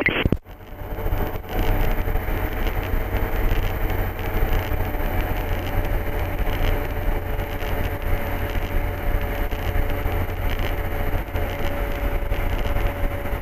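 MD3 Rider ultralight's engine and propeller running with a steady drone, with a few faint steady tones above it; a brief dropout about half a second in.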